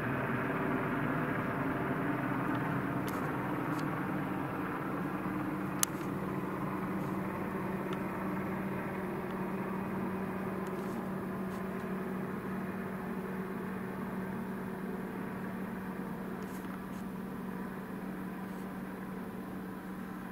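Helicopter droning steadily, with a low steady tone, slowly fading as it moves away. A single sharp click about six seconds in.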